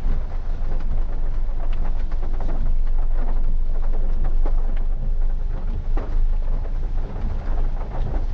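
Cabin sound of a Maruti Suzuki Ignis reversing slowly over a wet, rough road in the rain: a loud, steady low rumble from the car and its tyres, with scattered ticks and knocks over it.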